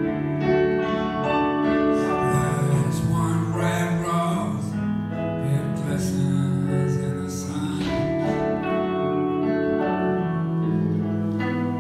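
Live band playing a slow, gentle instrumental passage between sung verses, with long held chords that change every second or two.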